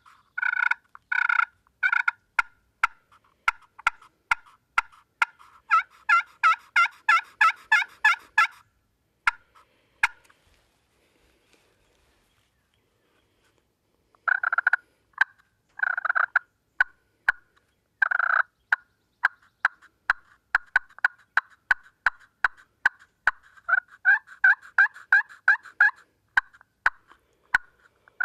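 Turkey pot call of walnut with glass and slate faces, played with a wooden striker, imitating a hen. It gives a run of yelps, then fast excited cutting, falls silent for a few seconds about halfway through, then gives more yelps and another run of cutting.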